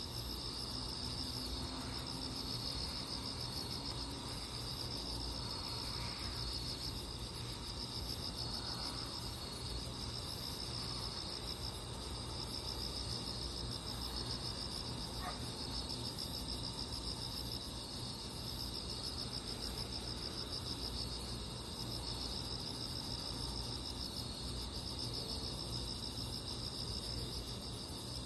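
Crickets chirping at night in a steady, unbroken chorus, with a second, higher insect call pulsing faintly over it and a low hum beneath.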